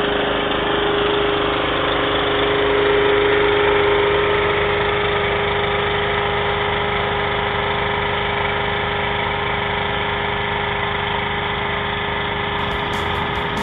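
A tractor's engine and the small generator engine on its UV-lamp rig running steadily together.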